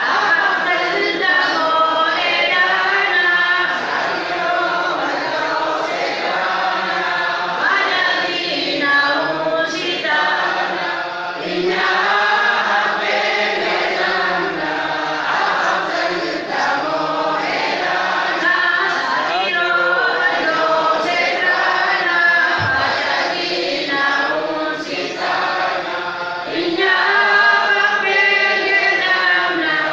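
A large crowd of many voices singing a chant together, with no instruments, a little louder near the end.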